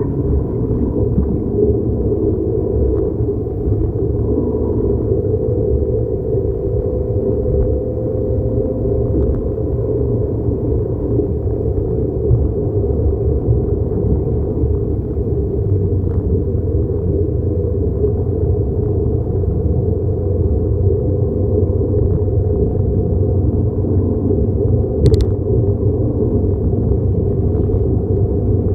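Car engine running steadily with a low rumble, a brief click near the end.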